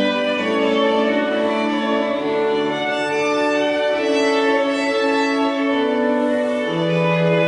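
Violin playing a slow classical piece with organ accompaniment, in long held notes that change about once a second.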